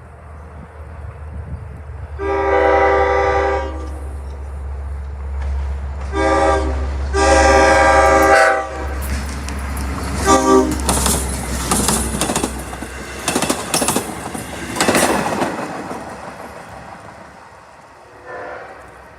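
A Long Island Rail Road DE30AC/DM30AC-class diesel locomotive's air horn sounding four blasts (long, shorter, long, then brief) over the low rumble of the locomotive. Then comes a rapid clatter of wheels over rail joints as the train passes, and a faint horn blast near the end.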